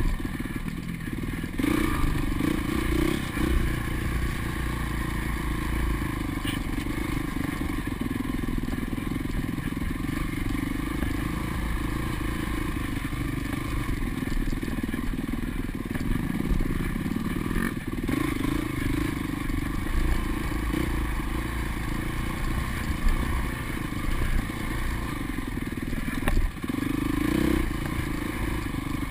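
2005 Honda CRF450's single-cylinder four-stroke dirt bike engine running as it is ridden along a rough trail, heard close from a camera mounted on the bike. The revs rise in a few short bursts, with knocks and clatter from the bike over the uneven ground.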